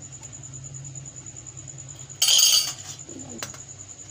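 A metal spoon scraping and clattering against a nonstick pan in one short burst about two seconds in, followed by a brief low sound that falls in pitch.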